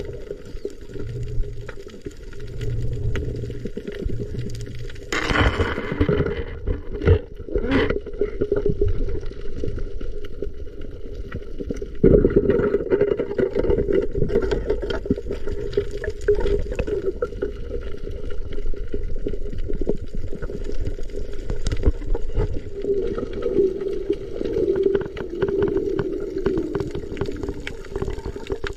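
Muffled underwater water noise with gurgling and bubbles, picked up by a submerged camera. About five seconds in there is one sharper burst, followed by a few knocks.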